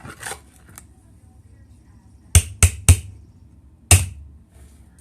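A spoon scraping briefly, then sharp knocks on a dish: three quick taps about two and a half seconds in and one more a second later.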